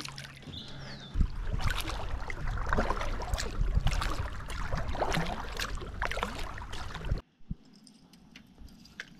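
Knocks, rattles and scrapes of gear being handled aboard a kayak, over a low rumble, stopping abruptly about seven seconds in.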